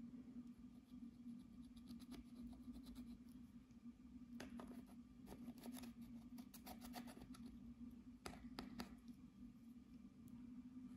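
Faint scratching and ticking of a tool scraping pressed eyeshadow powder out of a palette's pans, in irregular clusters from about four seconds in, over a low steady hum.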